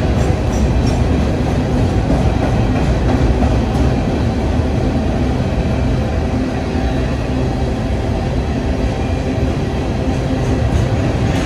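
Empty open-top rock hopper cars of a freight train rolling steadily past: a loud, continuous rumble of steel wheels on the rails.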